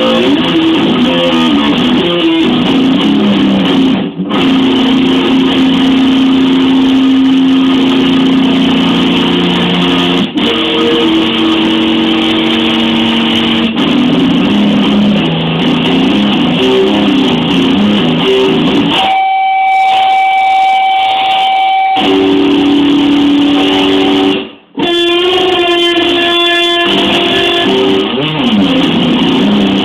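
Electric guitar played through an amplifier and an Electro-Harmonix Freeze sound retainer pedal. Held notes and chords sustain for several seconds under picked notes played over them, with a single high held note about two-thirds of the way through.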